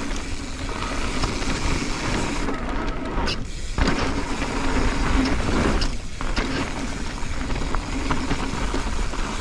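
Mountain bike descending a loose dirt-and-gravel trail at speed: wind rushing over the camera microphone and tyres rolling over grit, with scattered clicks and knocks from the bike over bumps. The noise thins out briefly twice, about three and a half and six seconds in.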